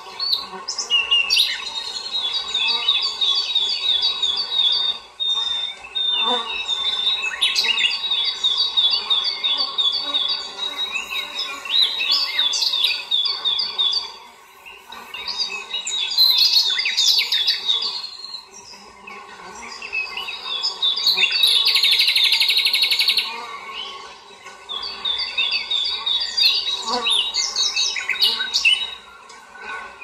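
Songbirds chirping and singing in repeated rapid series of high notes, with a short buzzing trill a little over two-thirds of the way through.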